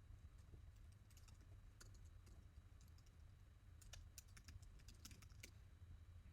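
Faint typing on a computer keyboard: scattered keystrokes, with a quicker run of them about four to five and a half seconds in, over a low steady hum.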